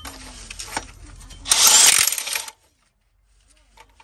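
Cordless impact wrench on the crankshaft pulley bolt running in one loud burst of about a second, after a few lighter metallic clicks.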